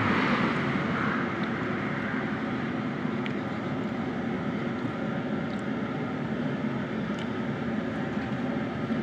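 Steady rumbling background noise, with a few faint clinks of a metal spoon and fork against a plate.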